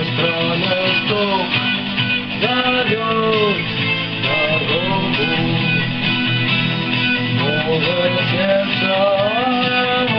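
Instrumental break in a rock song: a lead guitar melody with sliding, bent notes over steady guitar backing.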